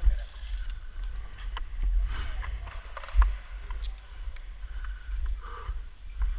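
Low rumbling thumps with a few scattered sharp clicks, loudest at the start and a little after three seconds in.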